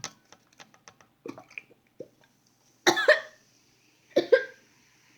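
A girl sucking soda up through a cardboard toilet-paper roll: a run of small slurping clicks, then two hard coughing fits about three and four seconds in as the fizzy drink goes down the wrong way.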